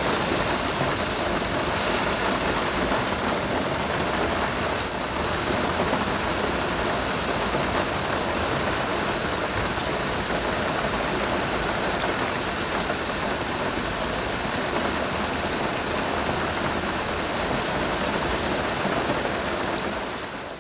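Steady rain, an even hiss of falling drops on a surface, fading out at the end.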